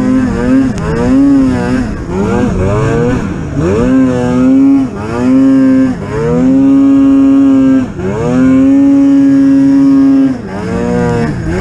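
Polaris Pro RMK 800 snowmobile's two-stroke twin engine under throttle. It is revved up and down in quick bursts, then held at high revs for two stretches of about two seconds each, dropping briefly between them and again near the end.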